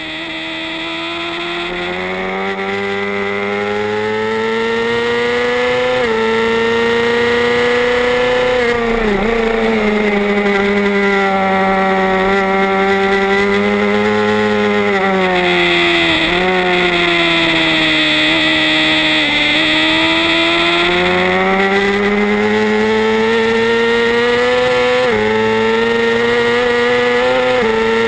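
A 2007 Suzuki GSX-R 600's inline-four engine running at high revs, heard onboard the race bike. Its pitch rises and dips as the throttle is rolled and gears change, with wind rush over the bike. The sound fades in over the first several seconds.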